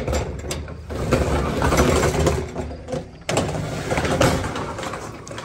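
A shed door being unlatched and pulled open by the handle at its bottom edge: a sharp clack of the latch, then a long, loud rattling rumble as the door moves, with a brief break about three seconds in.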